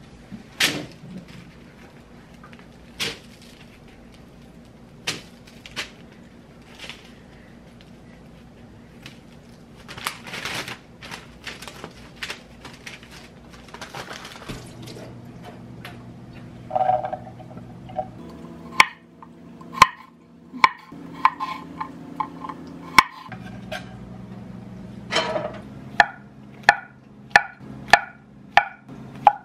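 Kitchen knife slicing garlic cloves and then button mushrooms on a wooden cutting board: a run of sharp knocks from the blade hitting the board, coming faster near the end at about two a second. Before that, light rustling and scattered soft taps as bread pieces are torn and laid on parchment paper.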